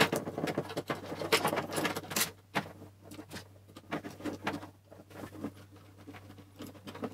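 Small hard-plastic gimbal parts and their motor wires being handled and fitted together: irregular clicks and rattles of the black plastic motor arm against the top plate, busiest in the first couple of seconds and sparser after.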